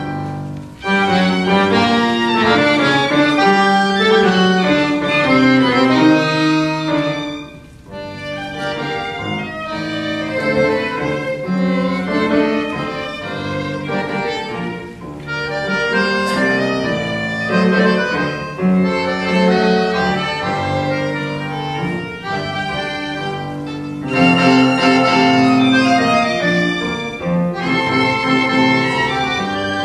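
Violin and accordion duo playing a tango, the violin carrying the melody over the accordion. The music drops away briefly about seven seconds in, then resumes and swells louder near the end.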